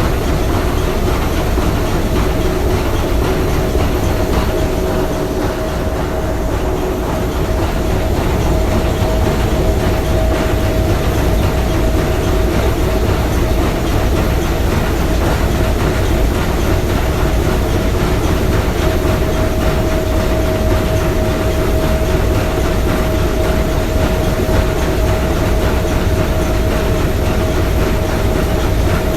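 Three-cylinder triple-expansion marine steam engine of the S.S. Bohuslän running steadily. Its even mechanical noise carries a steady hum with a higher whine over it, unchanging throughout.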